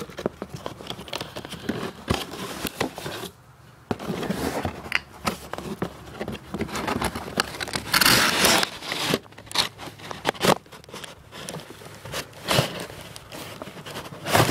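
A cardboard box and its packaging being opened and handled by hand: crinkling, scraping and clicking of cardboard and paper, with a louder rustling stretch about eight seconds in.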